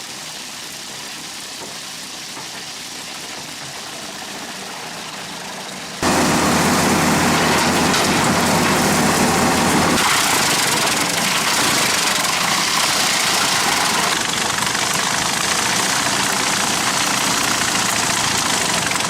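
Wood chipper running steadily, then about six seconds in a sudden jump to a much louder, rougher noise as it takes in wood, which carries on to the end.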